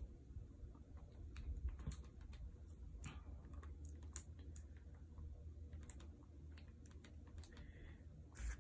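Faint, irregular clicks of a calculator's buttons being pressed, over a low steady hum.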